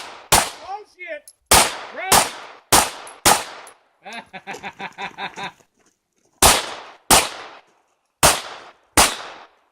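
Gunshots fired one at a time, about nine in all, spaced roughly half a second to a second apart, each ringing out briefly. In a gap in the middle there is a quick stuttering run of about ten softer pulses.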